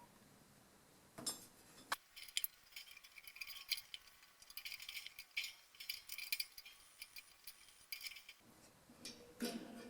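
Light metallic clicks, clinks and rattles at irregular intervals, from handling the air compressor's pressure switch and threading it onto its taped pipe fitting.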